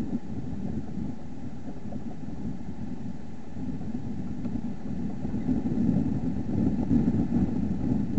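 Steady low background rumble that wavers in level, with no distinct events or animal sounds.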